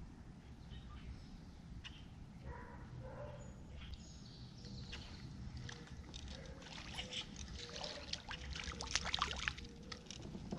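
Water lapping against a kayak hull with low wind rumble, then from about halfway through a growing patter of small splashes, most dense near the end, as a hooked pumpkinseed sunfish thrashes at the surface while it is reeled to the kayak.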